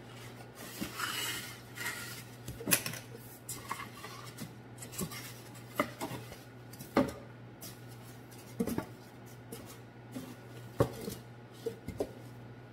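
Cardboard box and foam packing rustling and scraping as a metal flour-milling attachment is lifted out, with scattered sharp clinks and knocks of its metal parts, the loudest around three, seven and eleven seconds in.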